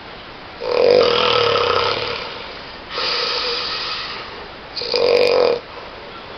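A sleeping person snoring loudly: a long, rough snore starting about half a second in, a softer breathy one around three seconds, and a short loud snore near the end.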